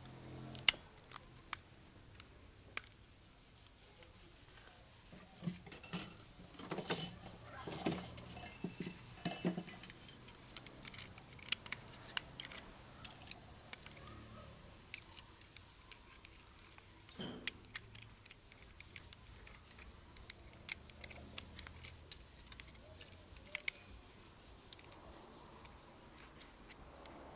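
Small metal parts of a Toyota automatic gearbox's clutch pack clicking and clinking as they are handled and fitted together during assembly. A busier run of clinks comes about five to ten seconds in, then scattered single clicks.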